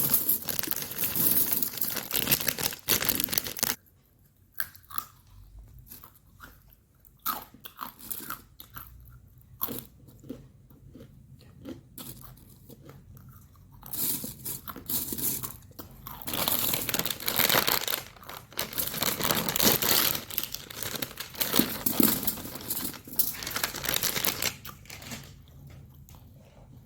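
Close-up crunching and chewing of crisp snack food, loud bites in the first few seconds and again through the second half, with softer chewing in between.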